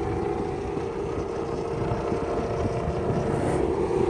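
Dodge Charger Hellcat's supercharged 6.2-litre Hemi V8 running at a steady cruise with road noise, a steady drone that gets slightly louder near the end.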